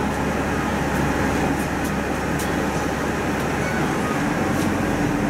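Bus driving, heard from inside the cabin: a steady engine hum and road noise, with the engine's low hum changing about four seconds in and a few faint rattles.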